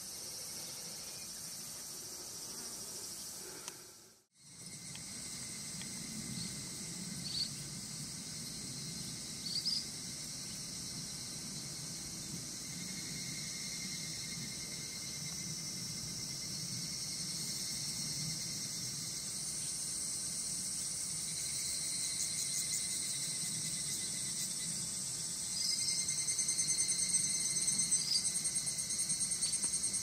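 A steady, high-pitched chorus of summer insects. A louder, pulsing layer joins about 26 seconds in, and there are a few short, faint chirps along the way.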